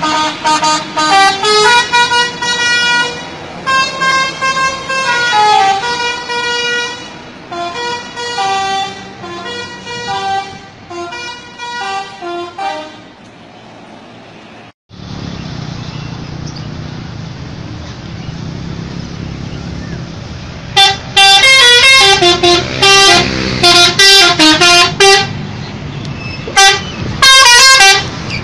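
Garuda Mas bus's telolet horn, a multi-tone air horn, playing short melodic tunes of stepping notes. About halfway through, the sound cuts to a steady low engine rumble for several seconds, then loud horn tunes start again.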